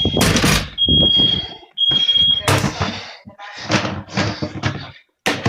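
Nest Protect smoke alarm sounding its emergency alarm: a high-pitched beep repeated three times in the first couple of seconds, amid loud bursts of noise and a voice. The alarm will not hush and is going off with no smoke present, a false alarm.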